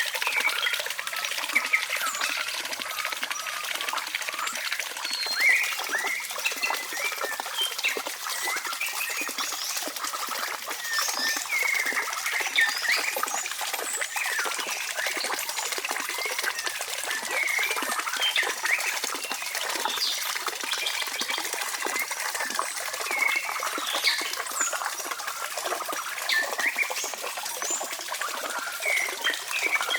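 Steady wet trickling, with many short high chirps and squeaks over it.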